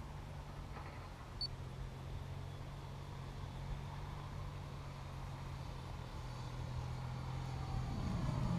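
Brushless electric motor and propeller of a radio-controlled model plane, a steady low drone that shifts slightly in pitch and grows louder near the end.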